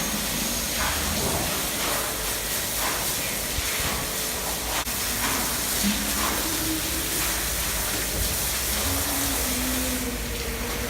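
Steady hiss of water spraying from a hose as cattle are washed down.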